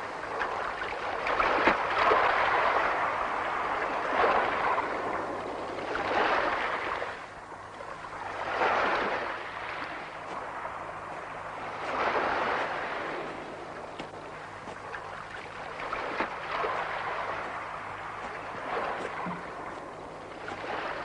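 Waves washing in, a rushing noise that swells and falls back every few seconds.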